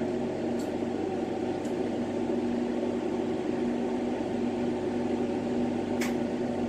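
Steady hiss and hum of a lampworking bench torch burning, with workshop equipment running under it and a few faint ticks.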